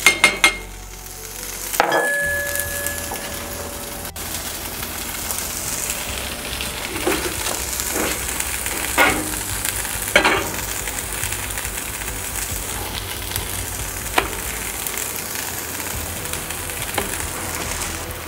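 Tater tots sizzling in a hot skillet while a metal potato masher mashes them into hash browns, knocking against the pan several times, in a quick cluster at the start and then every second or so around the middle.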